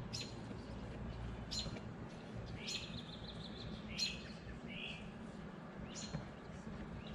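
Songbird calling: short sharp chirps every one to two seconds, with a quick trill about three seconds in, over faint low background noise.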